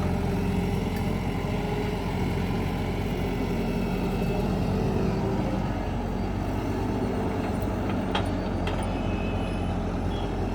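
Heavy machinery's diesel engine running steadily, with two short sharp clicks about eight seconds in.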